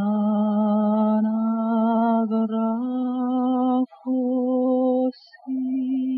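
A single voice singing slow, long held notes in a chant-like line, stepping up in pitch about three seconds in, with two brief breaths between notes near four and five seconds.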